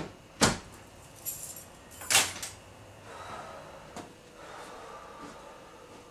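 An interior door is pushed shut with a sharp knock as it closes. A second, similar hard knock comes about two seconds in, with lighter clicks and a jingle of keys between them.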